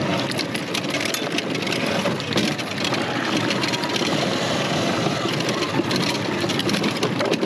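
79 Bike Falcon M electric dirt bike ridden hard over rough ground, heard from a GoPro on the rider: a steady rush of noise with rapid rattling and knocking from the bike as the rear end gets kicked around on a rear shock with its damping set fully stiff.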